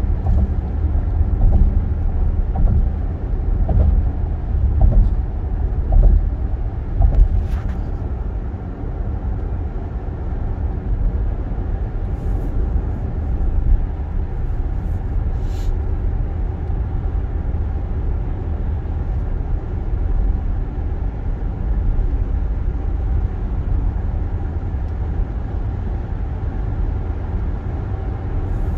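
Road and engine noise inside a moving car's cabin: a steady low rumble, with a few short thumps over the first eight seconds or so.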